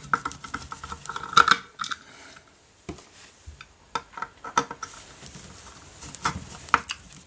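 Screwdriver working the small screws of a metal cover plate: a scatter of light clicks, taps and scrapes of steel on metal at uneven intervals.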